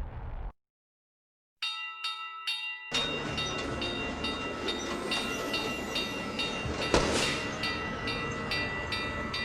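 Cartoon train sound effect: three short whistle toots, then the train running with a bell ringing rapidly, about three strikes a second, and a sharp swish about seven seconds in. Before it, a hissing rush from the previous effect cuts off half a second in.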